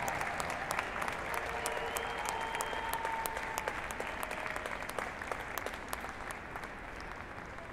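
Audience applause, many hands clapping, slowly dying down.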